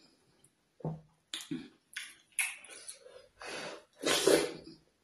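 Mouth sounds of eating pounded yam dipped in ogbono soup, a slimy draw soup: a series of short wet smacks and slurps, the loudest about four seconds in as a mouthful goes in.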